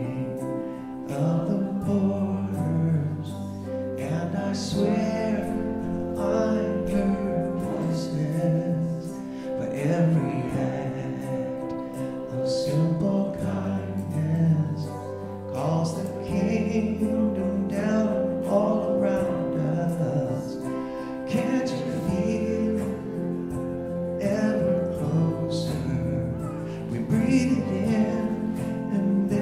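Live worship song: a man singing into a microphone over sustained instrumental accompaniment.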